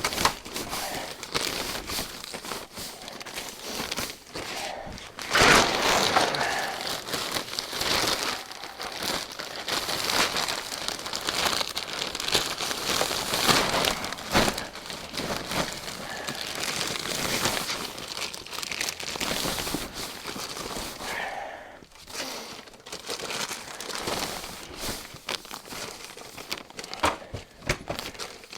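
Plastic trash bags crinkling and rustling as they are handled and pulled over truck seats, with irregular crackles throughout.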